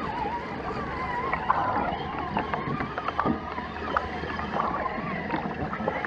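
Shallow, rocky creek water gurgling and bubbling at the waterline, with a wavering burbling tone and scattered small clicks and splashes.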